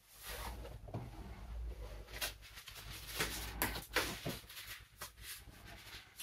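Scratchy rustling of a paintbrush working oil paint, with irregular light clicks and taps, over a low room hum.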